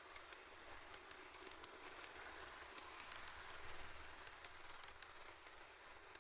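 Faint steady rolling hiss with many small irregular clicks, from a model train running on its track.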